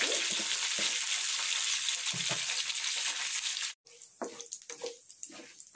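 Hot oil sizzling in a kadai as tempering seeds and dals (mustard seeds, urad dal, cumin, chana dal) fry. The sizzle cuts off abruptly a little under four seconds in, leaving only faint crackles and clicks.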